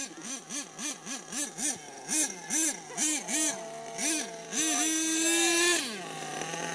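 HPI Savage radio-controlled monster truck's engine revved in quick blips, about three a second, as it drives on grass. Near the end it is held at high revs for about a second, then drops back to a steady idle.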